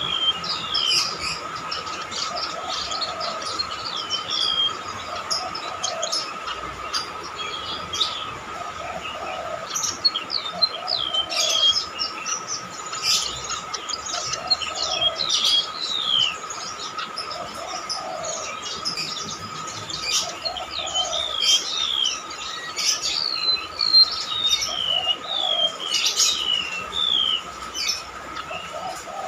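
Golden-bellied gerygone singing: runs of high, shrill whistled notes, each sliding downward, repeated again and again with short pauses.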